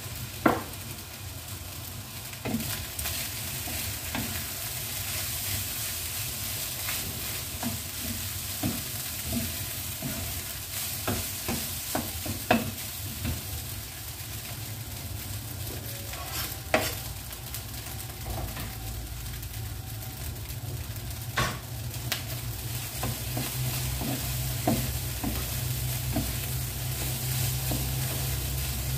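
Rice frying in a wok, sizzling steadily, with scattered knocks as a wooden spatula stirs and strikes the pan. A low hum grows louder near the end.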